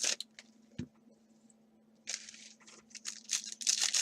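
Trading-card pack wrappers tearing and crinkling: a short rip about two seconds in, then quick crackly rustling, with a soft thump about a second in.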